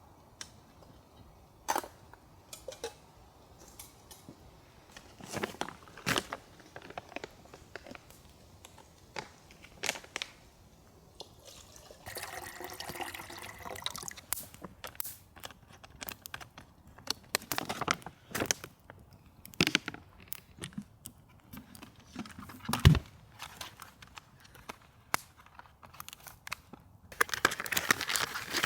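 Scattered knocks and clicks of small objects being handled, with about two seconds of liquid pouring about twelve seconds in, and a denser rustling near the end.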